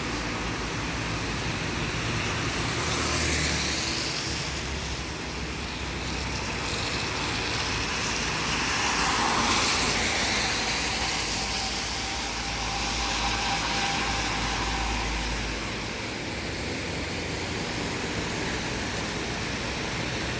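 Rain falling, a steady hiss that swells twice, about three seconds in and again near ten seconds.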